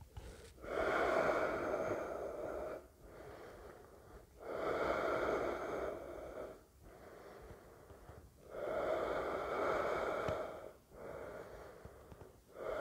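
A man breathing slowly and deeply while holding a yoga pose: four long, audible breaths about four seconds apart, with quieter breaths in between.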